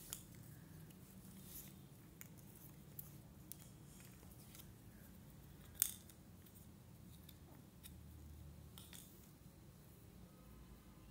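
Faint scattered clicks and taps of cardboard jigsaw puzzle pieces being handled and pressed into place, with one sharper click about six seconds in.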